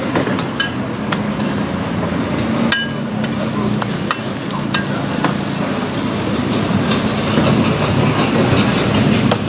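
Banana pancakes frying on a flat metal griddle, with a metal spatula clicking and scraping against the pan at scattered moments, over a steady background din.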